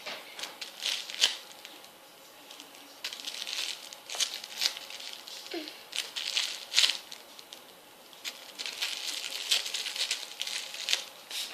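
Rustling and crinkling with scattered light clicks and knocks, as of small objects being handled.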